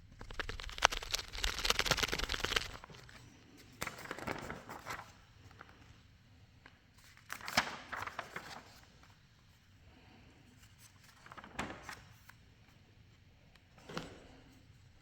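Paper rustling and crinkling as sheets are handled: a longer, louder burst at the start, then four short rustles spaced a few seconds apart.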